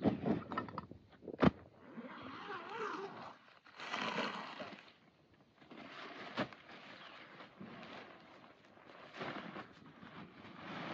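Nylon camping bags and a tent being handled and unpacked: fabric rustling and scraping, with two sharp knocks, about a second and a half in and again past the middle, as gear is set down.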